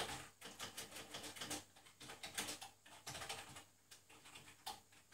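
Computer keyboard being typed on: a faint, irregular run of key clicks with brief pauses between bursts.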